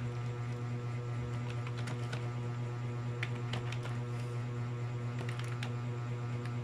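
Typing on a keyboard: irregular keystroke clicks over a loud, steady electrical hum.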